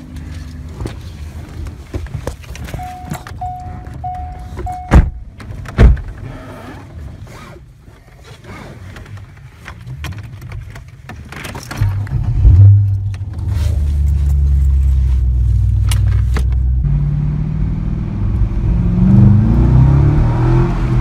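Inside a C5 Corvette Z06: a chime beeps several times and two heavy thumps follow, then the 5.7-litre LS6 V8 starts with a loud burst about twelve seconds in and idles. Near the end the engine rises in pitch as the car pulls away.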